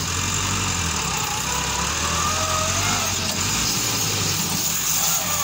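Massey Ferguson tractor's diesel engine running steadily under load as it pulls a heavily overloaded trolley of earth.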